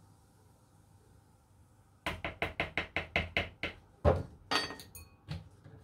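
A metal teaspoon tapped quickly against the plastic mixing bowl, about ten light knocks in under two seconds, starting after two seconds of near silence, then a few louder, spaced knocks near the end.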